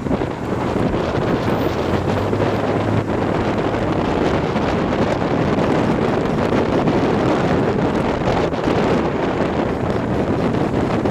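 Steady rushing road noise from a car on the move, recorded for a wheel noise that has stopped coming and going and now stays on.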